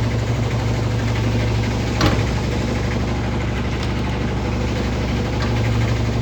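General Electric washing machine running with a steady motor hum, no longer scraping now that the bent bottom sheet metal no longer hits the turning parts. A single sharp click about two seconds in.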